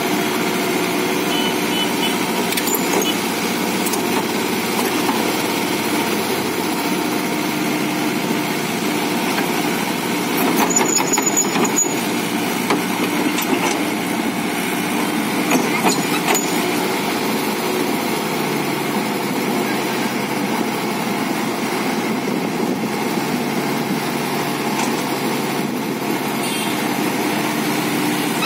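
JCB JS81 excavator's diesel engine running steadily, with a few louder clanks and knocks near the middle.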